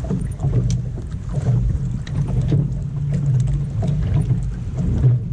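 Strong wind buffeting the microphone: an unsteady low rumble, with occasional light clicks over it.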